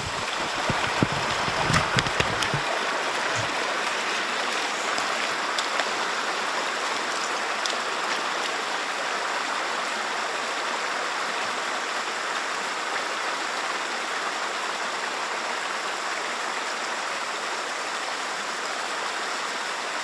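Small stream rushing steadily over little cascades. In the first few seconds, splashing steps of boots wading through the shallow water.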